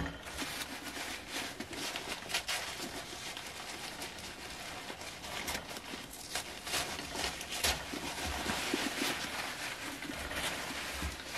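Paper wrapping rustling and crinkling in short, irregular crackles as salt and pepper shakers are unwrapped and handled, with a few soft knocks.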